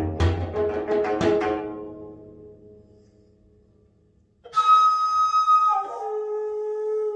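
Gayageum plucked notes ring out and fade away to near quiet. About four and a half seconds in, the daegeum bamboo flute enters with a breathy, long held note, then steps down to a lower held note.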